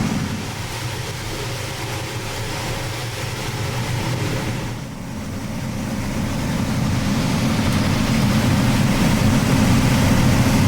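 John Deere S7 800 combine, a 473 hp machine, running steadily while harvesting corn. The hum dips slightly about five seconds in, then grows louder.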